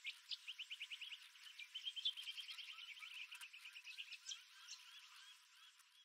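Birds calling: a rapid trill of short repeated notes, several a second, starts right away. Lower curving notes join about halfway, and the song slows and fades toward the end.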